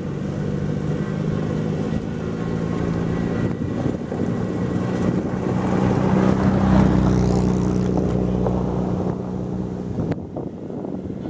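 Heavy diesel engine of a road roller running steadily. It grows louder through the middle, then drops off abruptly near the end.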